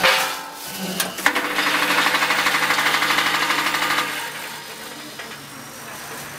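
Vibratory feeder of an automatic linear weighing machine buzzing with a rapid, even rattle as it shakes peanuts forward into the weigh hopper. The buzz stops after about three seconds, leaving a lower steady machine hum. A short clatter comes right at the start.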